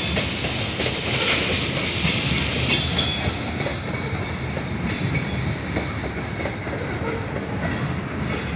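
Freight train of tank cars rolling past: a steady rumble and clatter of steel wheels on the rails, with brief high-pitched wheel squeals several times.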